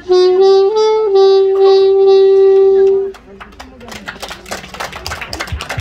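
The song's accompaniment ends with a wind instrument holding its last note, stepping through a few pitches before stopping about three seconds in. Scattered clapping follows.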